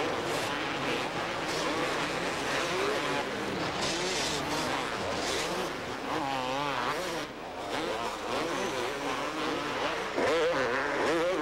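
Two-stroke supercross motorcycles racing, several engines revving up and down over one another, louder about ten seconds in.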